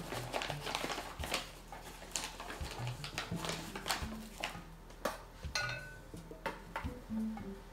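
Paper flour bag rustling and a plastic measuring cup scooping and scraping through all-purpose flour, in many short strokes. A short ringing clink from the measuring cup or the metal sifter comes a little after halfway through.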